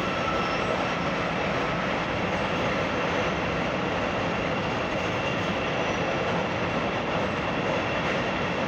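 CTA Bombardier 5000-series rapid-transit train rolling in along the platform as it enters the station: a steady noise of wheels on rail, with a faint steady whine over it.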